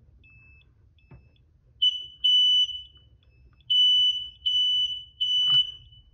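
Smoke alarm sounding loud, high beeps in a group of three, set off through the interconnect when the alarm with the broken horn is tested. Fainter, lower short beeps come before them, and there is a knock about five and a half seconds in.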